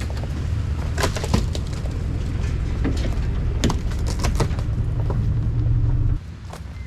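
Truck engine running low while branches and twigs crack and snap, several sharp cracks in a row; the engine sound stops abruptly near the end.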